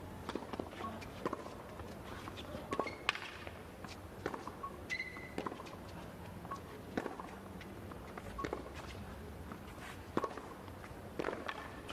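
Scattered short knocks and footsteps on a hard tennis court, with a brief high squeak about five seconds in, over a low arena background.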